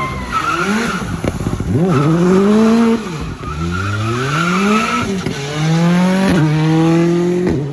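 Rally car's engine revving hard, its pitch climbing and dropping back several times, with its tyres squealing as it slides.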